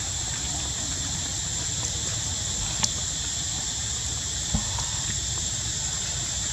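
Steady outdoor background noise: a low rumble under a constant high-pitched whine, with two faint clicks about three and four and a half seconds in.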